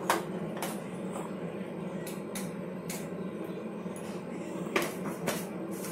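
Several light, sharp clicks and taps of kitchen utensils against steel cookware, spread out over a steady low background hum.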